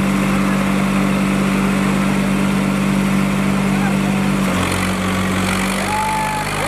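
Tractor diesel engines running hard at a steady note as the hooked tractors pull against each other in a tug-of-war; the engine note drops about four and a half seconds in.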